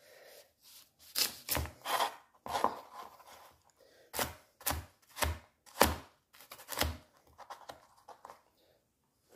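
Chef's knife cutting through raw carrots: about ten separate cuts, each a crisp knock of the blade, unevenly spaced, followed by a few lighter taps.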